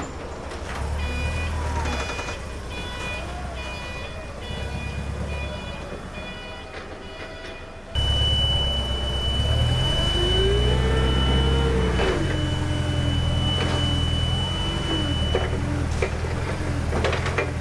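Forklift running: a low engine hum with high steady tones above it. About eight seconds in, the sound changes abruptly to a louder hum, with one long high tone lasting several seconds and a whine that rises and falls.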